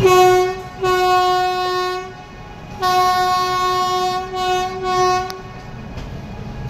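Air horn of an Indian Railways electric locomotive sounding a series of loud single-pitched blasts: a short blast, a longer one of about a second, then after a short pause a long blast followed by two short ones in quick succession.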